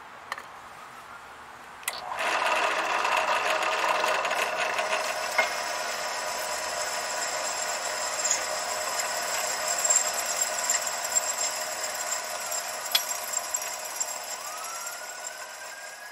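Drill press running a Milwaukee Red Helix 5/16-inch cobalt twist bit, which starts cutting into quarter-inch 304 stainless steel about two seconds in. The cut is a loud, steady, high-pitched ringing squeal that eases slightly near the end.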